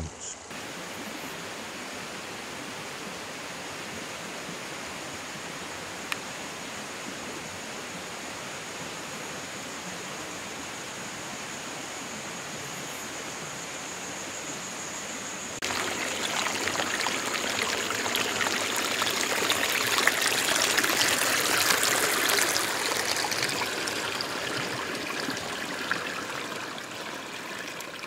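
Small mountain stream running over stones, a steady rush of water. It jumps louder about halfway through and then eases off a little toward the end.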